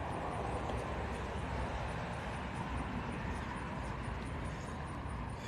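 Steady background rumble of outdoor city ambience, like distant traffic, with a faint high ticking repeating about four times a second.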